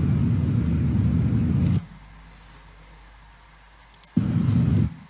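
Low, steady outdoor rumble on the soundtrack of an outdoor video of ants at bait granules; it cuts off sharply about two seconds in. The same rumble returns briefly near the end, and between the two there is only faint background noise.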